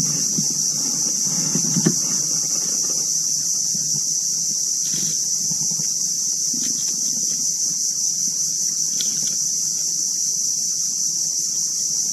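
Insects keep up a loud, steady, high-pitched drone with no breaks. A few soft low knocks come in the first two seconds.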